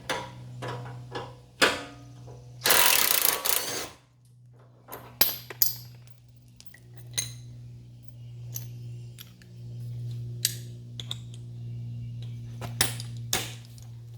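Scattered metallic clinks and knocks of hand tools and bolts, with one dense burst of noise lasting over a second about three seconds in. A steady low hum runs underneath.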